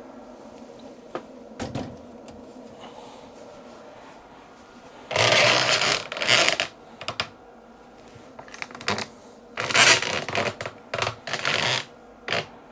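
Handling noise on the workbench: a few light clicks, then two spells of loud scraping and rattling about five and ten seconds in.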